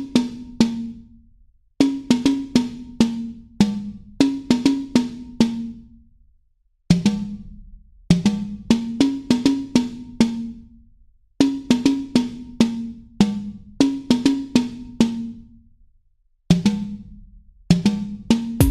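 Background music that is drums only: phrases of sharp, pitched drum hits, broken by short pauses about a second in, around six seconds in and around sixteen seconds in.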